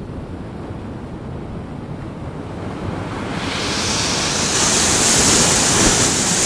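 Sea surf churning against shoreline rocks. About halfway through, a wave builds into a loud hissing wash of foam that breaks over the rocks near the end.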